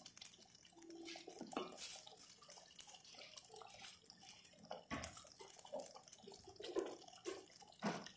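A thick chicken-and-bean tomato stew bubbling in a steel pot at a full boil, with faint irregular blips and pops. A few sharper knocks come about 2, 5 and 8 seconds in.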